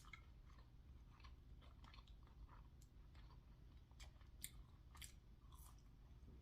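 Faint close-miked chewing: soft, scattered mouth clicks and crunches of someone eating a fast-food burger and fries, over a low steady hum.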